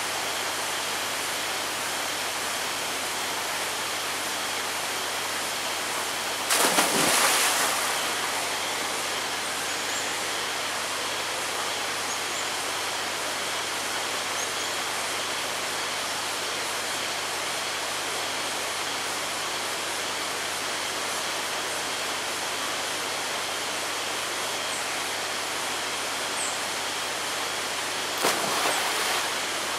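Steady rushing noise of flowing water. It swells twice into louder bursts of noise, about a quarter of the way in and again near the end.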